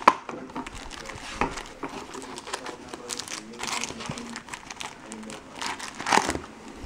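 Foil trading-card pack wrappers crinkling and rustling as the packs are pulled out of a cardboard box and stacked by hand, with sharper crackles now and then.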